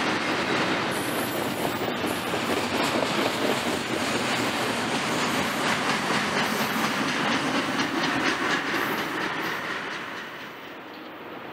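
Double-stack container freight train rolling past, the steady rumble of its cars and wheels clicking on the rails. The sound drops away about ten seconds in as the end of the train goes by.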